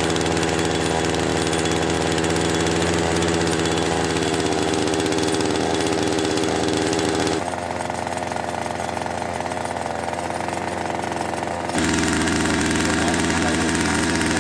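Small engine running steadily as it drives a winch reel winding in deep fishing line through the ice. It goes quieter and duller for about four seconds in the middle, then comes back at full level.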